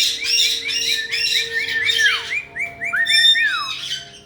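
Caiques calling: a fast run of short repeated chirps, about four or five a second, then a few longer whistled notes that hold steady and then drop in pitch.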